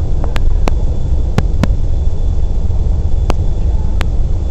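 Wind buffeting the camera's microphone, a loud, constant, rough low rumble, with several short sharp clicks scattered through it.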